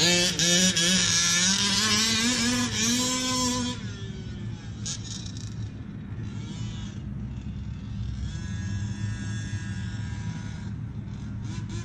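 Two-stroke gas engine of a Losi DBXL 1/5-scale RC buggy, fitted with a Losi tuned pipe, running at high revs with a wavering pitch, then backing off about four seconds in and turning quieter. Near the end come short, rising blips of throttle.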